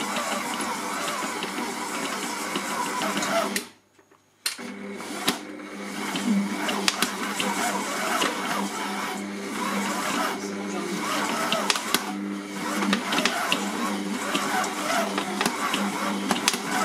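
Silvercrest SKM 650 A1 stand mixer running at low speed, its flat beater churning a stiff shortcrust dough with scattered knocks, the motor slowing at moments under the heavy load: a sign the machine is near its limit. The sound cuts out for about a second around four seconds in, then runs on.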